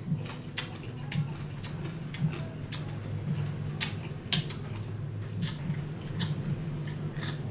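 A person chewing and crunching a mouthful of Thai-style salad with salted crab, with sharp, irregular crunches and mouth clicks over a steady low hum.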